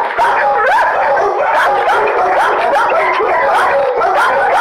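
Dogs in shelter kennels barking and yelping without pause, many short rising-and-falling calls following one another and overlapping.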